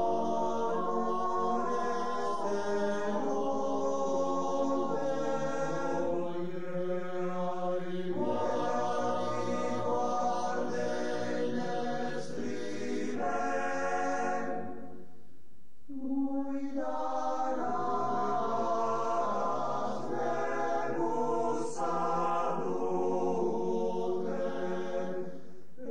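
Male alpine choir singing a slow Friulian song in sustained close harmony, unaccompanied, with a short break between phrases just past halfway.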